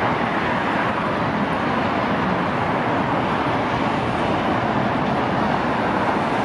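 Steady road traffic, cars and vans passing close by on a multi-lane road, with a metro train running along a surface track behind them.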